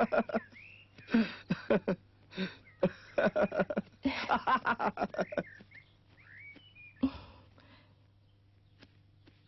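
A man laughing happily in quick runs of short bursts. A few short whistle-like chirps follow later, while the laughter quietens.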